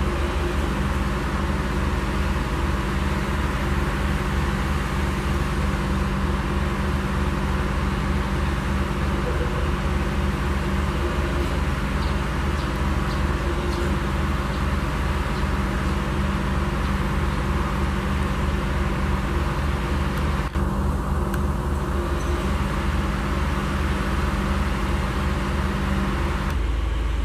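Plasser & Theurer Duomatic 09-32 CSM track tamping machine running: a steady engine drone with a rapid low pulsing underneath.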